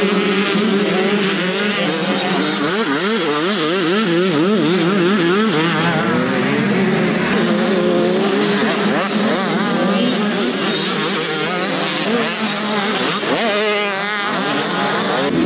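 Several motocross bike engines running at once, their pitch rising and falling in quick wobbles as the riders work the throttle.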